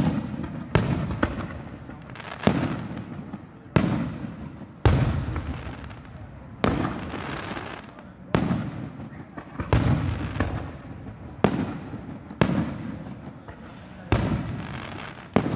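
Aerial fireworks shells bursting in quick succession, about a dozen booms roughly a second apart, each trailing off before the next.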